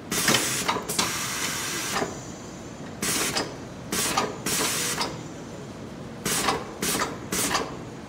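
Tire changing machine's pneumatic arm controls hissing in about eight short bursts of air, the first two lasting close to a second each and the last three coming close together near the end.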